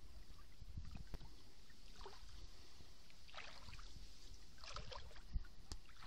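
Faint outdoor ambience: a low rumble of wind on the microphone with a few soft water sounds from a slow stream, spaced about a second and a half apart.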